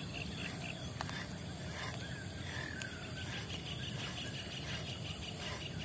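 Faint outdoor ambience with a steady low rumble. A faint high chirp repeats about five times a second, and a short falling bird call comes about two and a half seconds in.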